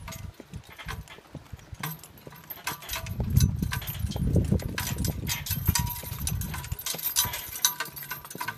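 Draft horses' hooves clopping on forest ground and harness chains jingling, with a louder low rumble through the middle few seconds.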